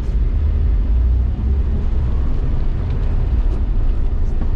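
Steady low drone of a Jeep Wrangler TJ driving on the road, heard from inside the cab: engine and drivetrain with tire noise from worn, cupped Duratrax tires.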